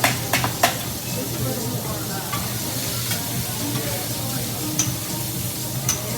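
Food sizzling and frying on a hibachi griddle, with the chef's metal spatula clicking against the steel plate three times in quick succession at the start and twice more later.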